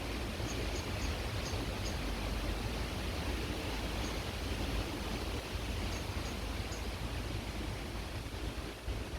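Creek water flowing steadily, with wind rumbling low on the microphone and a few faint, short, high chirps scattered through.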